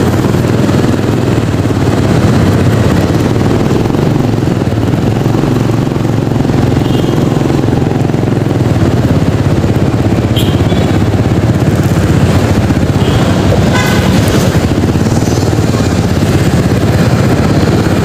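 Motorcycle engine running steadily while riding, with passing street traffic, a loud constant rumble. A couple of brief clicks stand out, around ten and fourteen seconds in.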